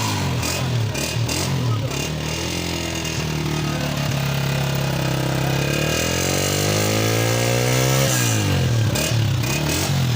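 Honda 125 motorcycle's single-cylinder four-stroke engine being revved with the throttle. The revs wobble up and down, then rise steadily for about four seconds before dropping sharply and picking up again near the end.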